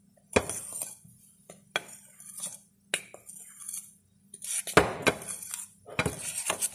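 Metal spoon clinking and scraping against a Pyrex mixing bowl while stirring flour and dry ingredients, in irregular knocks with a gritty scrape between them.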